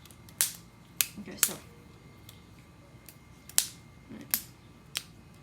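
Sharp plastic clacks of a LEGO butterfly knife being handled and flipped, its brick-built handles knocking against each other: about six separate clicks at irregular intervals.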